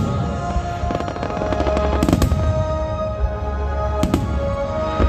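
Aerial firework shells bursting in a string of sharp bangs about a second apart, with a run of rapid crackling in the middle. Music with steady held notes plays underneath.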